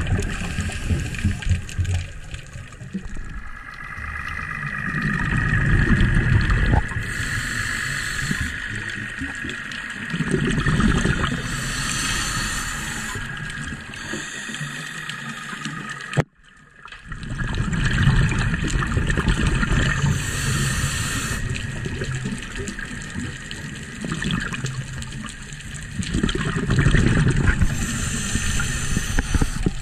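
Scuba diver breathing underwater through a regulator: a hiss on each inhale alternates with a rush of exhaled bubbles, in a slow cycle every several seconds. The sound drops out abruptly for a moment about halfway through.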